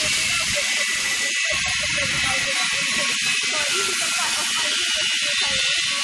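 A loud steady hiss, with a woman's voice speaking faintly underneath it.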